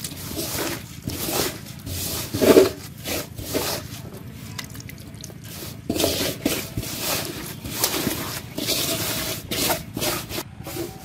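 A hand rubbing and stirring dry, crumbly fish bait around a metal basin: an irregular run of scraping, rustling strokes of grain against metal, the loudest about two and a half seconds in.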